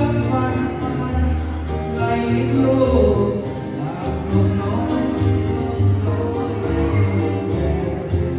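A song playing: singing over a band, with a bass line and regular percussion ticks.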